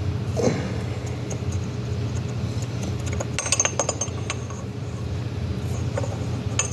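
Metal valve parts clinking and tapping as they are worked into a Safeway valve body by hand, with a cluster of clinks a few seconds in, over a steady low hum.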